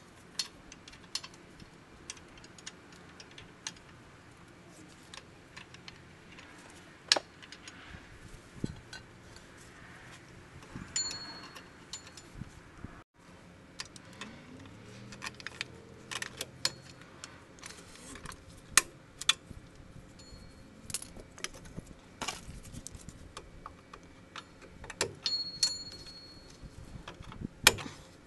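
Scattered metallic clicks and clinks of a 2016 Nissan Sentra's rear drum brake parts (shoes, return springs and adjuster) being handled and fitted by hand onto the backing plate.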